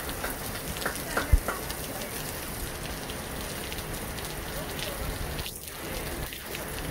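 Steady hiss of heavy rain falling, with a single dull thump about a second and a half in and a few faint distant shouts early on.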